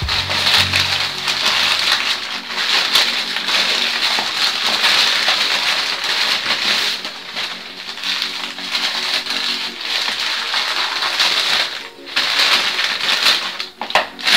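Newspaper and plastic wrapping crinkling and rustling as they are pulled and unwound off a parcel by hand.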